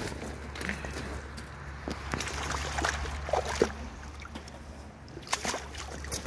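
Pond water sloshing and splashing as a large fish is released from a landing net and swims away, in a few short splashes. A steady low hum runs underneath.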